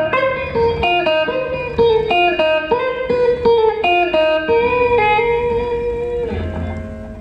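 Live electric guitar lead played over the band, a run of single notes with several bent in pitch, then a long held note that fades near the end.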